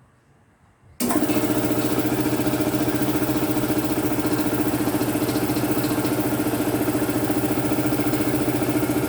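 Belt-driven air compressor switching on abruptly about a second in and running steadily with a fast, even pulsing beat. It now turns properly, its loose drive belt replaced with a shorter one.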